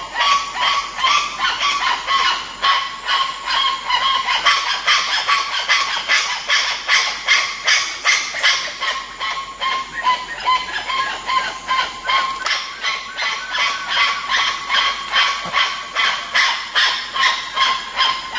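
Spider monkeys calling: a fast, unbroken series of short, high calls, about three a second.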